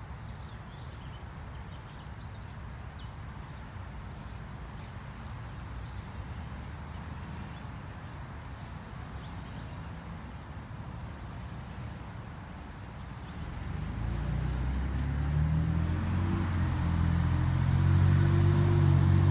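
Backyard ambience: a short, high chirp repeating about twice a second over low background noise. From about 13 seconds in, a motor vehicle's engine grows louder and is the loudest sound near the end.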